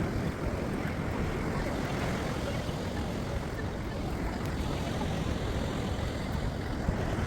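Steady rumbling noise, strongest in the low end, without any clear tone or rhythm.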